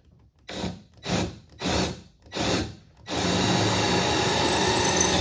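Ryobi cordless drill with a long bit, four short bursts then running steadily, drilling a hole through the plywood hull side for the leeboard's pivot bolt while the bit is held level.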